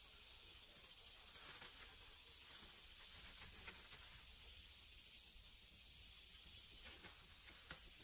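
A steady, high-pitched insect chorus that swells and fades slightly, with a few faint clicks scattered through it.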